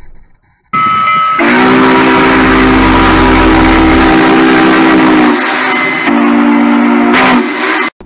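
Multi-note train horn sounding a chord in two blasts, the first about four seconds long and the second shorter, over a haze of hiss. It cuts off abruptly near the end.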